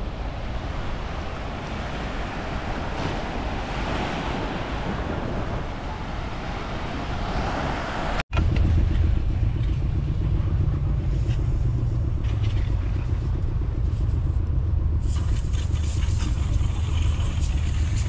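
A broad, even rushing noise, then, after an abrupt cut about eight seconds in, the steady low rumble of a motor vehicle's engine running close by.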